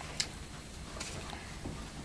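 Faint handling of trading cards between cards shown to the camera: a couple of light clicks over quiet room noise.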